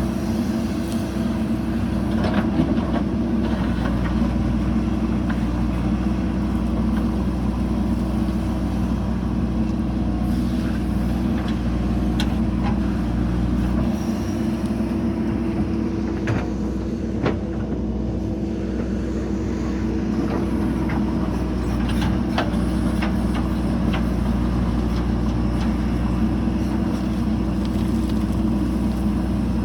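JCB 3DX backhoe loader's diesel engine running steadily, with a few short sharp knocks.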